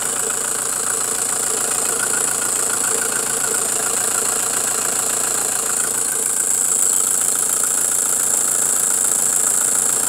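Detroit Diesel engine idling steadily with an even, rapid diesel clatter, heard close up at the belt and pulleys, with a steady high hiss over it.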